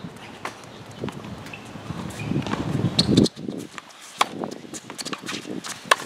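Tennis balls struck by rackets and bouncing on a hard court during a rally: sharp pops every second or so, the loudest about three seconds in and near the end, with quick footsteps on the court.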